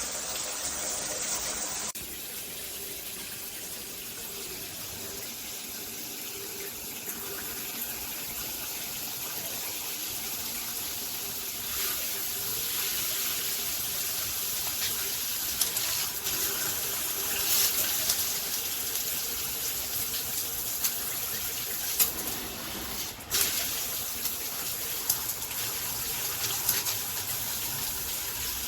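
Water spraying from a dual rain and handheld shower head, a steady hiss that changes abruptly about two seconds in, with a few brief knocks later on.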